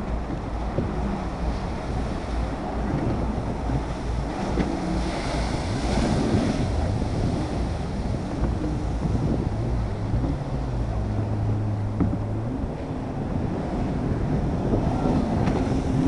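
Jet ski engine running as the craft carves turns close by, under steady wind noise on the microphone and the wash of waves and spray.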